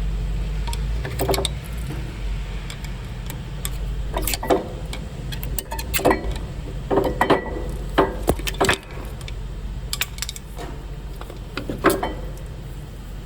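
Irregular metallic clicks and clinks as a screwdriver prises the front brake pads out of the caliper, over a steady low hum.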